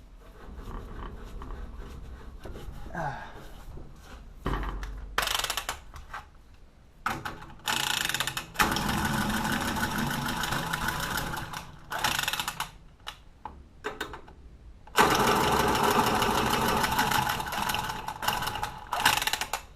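A small motor or power tool running in bursts: a short one about five seconds in, a long run from about eight to twelve seconds, and another from about fifteen to nineteen seconds, with clunks and knocks in between.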